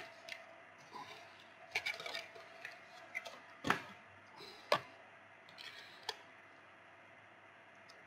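Blue plastic retail pack of a laptop DDR4 RAM module being prised open and the stick taken out: scattered plastic clicks and crackles, with two sharper snaps around the middle, stopping about six seconds in.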